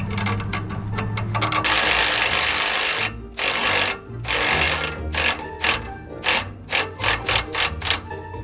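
Cordless electric ratchet (Milwaukee M12 Fuel 3/8") running a nut onto a sway bar end link stud: one long run, two shorter ones, then a quick string of short trigger bursts as the nut is snugged down. Background music plays underneath.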